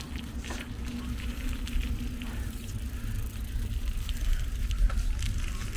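Wind rumbling on the microphone and rolling noise from a moving bicycle, with scattered light clicks and a faint steady hum.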